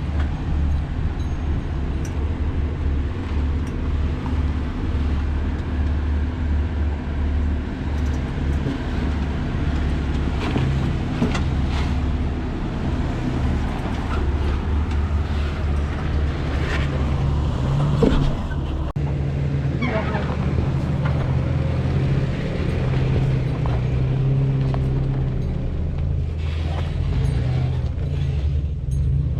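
Off-road 4x4's engine running steadily at low crawling speed over rock, with scattered knocks and thumps from the rocks and the vehicle's suspension.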